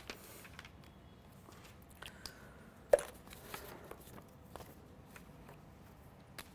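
Sheets of paper rustling and being handled close to a clip-on microphone, with scattered small clicks and one sharp tap about three seconds in.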